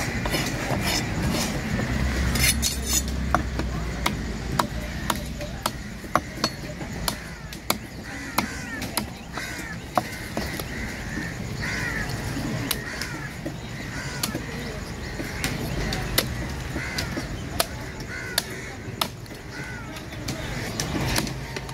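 A large knife chopping through a red snapper head on a wooden block, with sharp chops at an uneven pace of about one a second. Crows caw in the background.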